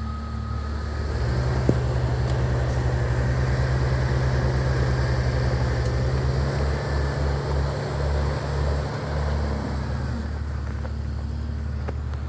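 Jeep engine running under load, its hum rising about a second in and easing back near the end. A single sharp knock comes a little under two seconds in.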